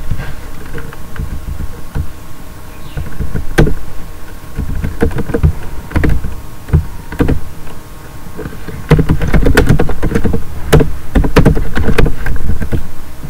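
Computer keyboard and mouse clicks: scattered sharp clicks as code is selected, copied and pasted, over a low rumble that grows louder in the second half.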